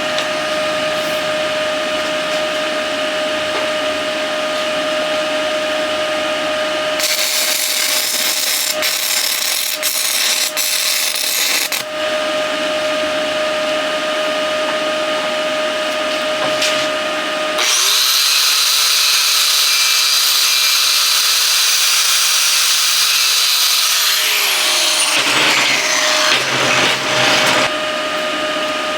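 Shop machinery hum with stick-welding work on steel plate. A few seconds in there are about five seconds of hissing, crackling noise, and later a high-speed power tool runs for about six seconds, then winds down with a falling whine.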